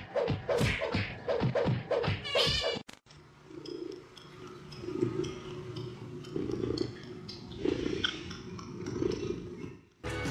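A cat calling quickly and repeatedly, about eight short calls, then a cut to a cat purring in slow, even swells that rise and fall about every second and a half.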